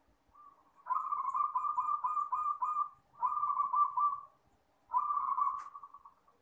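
Zebra dove (perkutut) cooing in three phrases, each a quick run of short pulsed notes. The first phrase lasts about two seconds and the other two about a second each.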